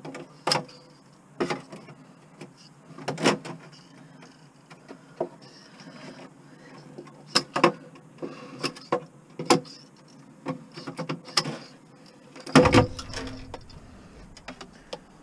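Yellow-handled snips clipping wires and cable ties inside a big-screen TV cabinet: a string of irregular sharp clicks and snaps with handling knocks, and a heavier thump near the end.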